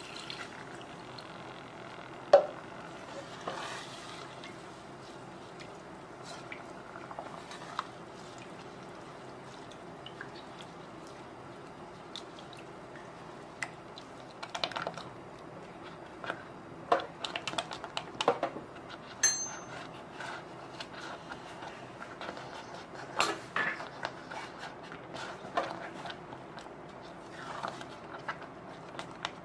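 Milk poured into a stainless-steel pot of butter-and-flour roux, then a silicone spatula stirring and scraping the thickening mixture against the pot. Scattered sharp knocks and scrapes of the spatula on the metal, the loudest about two seconds in and more frequent in the second half.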